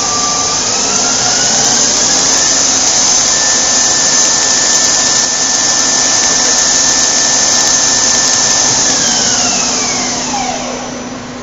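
Daewoo Puma 400 CNC lathe spindle, with a steel disc in its chuck, spinning in high gear. Its whine climbs for the first couple of seconds as the spindle speeds up, holds steady over a loud hiss, then falls away about nine seconds in as the spindle slows down.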